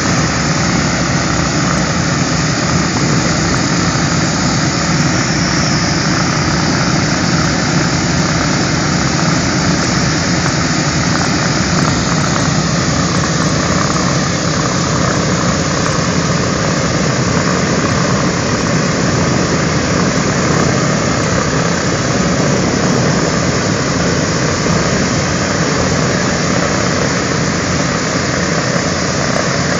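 Radial piston engines of a B-17 Flying Fortress and a B-24 Liberator running steadily on the ground after start-up: a loud, even, unbroken drone.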